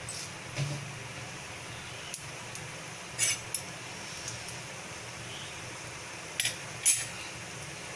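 Cumin seeds crackling in hot oil in a kadai: a few short, sharp crackles and spits scattered over a steady low background.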